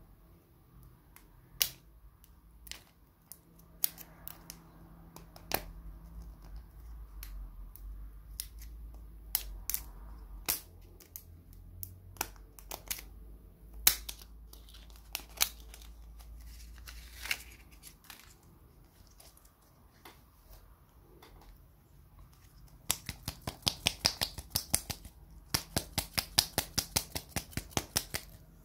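Plastic shrink wrap and a sticker label being peeled and torn off a hard plastic surprise-egg capsule, making scattered crackles and sharp snaps, then a fast run of clicks, about five or six a second, for the last five seconds or so.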